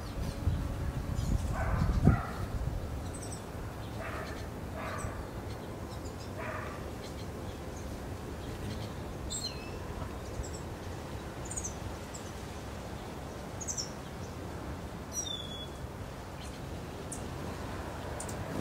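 A low rumble ending in a thump about two seconds in, then a dog barking several times in the distance. Short, high bird chirps are scattered through the second half, over a steady outdoor background.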